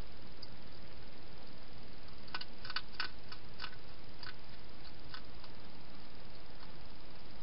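A wild hedgehog chewing and crunching food at a feeding bowl: an irregular run of about eight short, sharp clicks between two and five seconds in, over a steady hiss.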